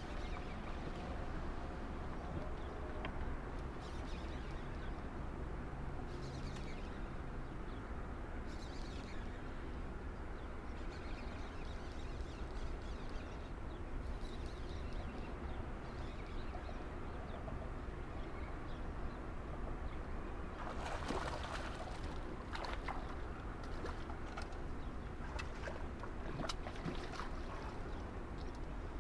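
Steady rush of river water below a dam, with a louder stretch of splashing and knocks between about three-quarters of the way in and near the end, while a hooked hybrid striped bass (wiper) is brought in to the rocks.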